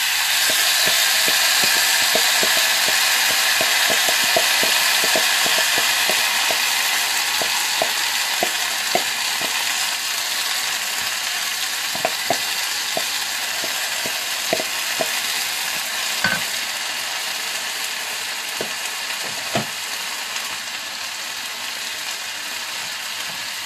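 Food frying in hot oil in a pan: a steady sizzle with scattered crackling pops. It jumps up at the start and slowly dies down.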